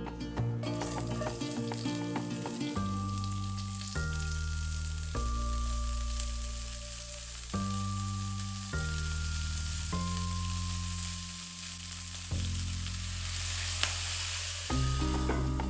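Food frying in a pan, a steady sizzle that starts about half a second in, over background music with slow held bass notes.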